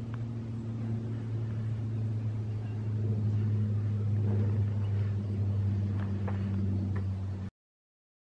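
Steady low mechanical hum, like a motor running, growing a little louder through the middle, with a few faint ticks; it cuts off abruptly about seven and a half seconds in.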